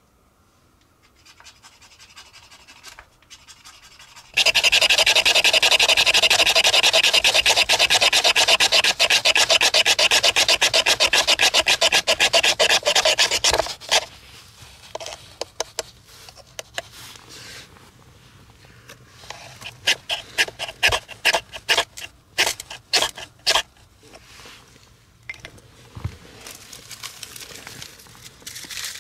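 Loud, fast rasping strokes for about nine seconds that stop suddenly, followed later by several shorter bursts of scraping.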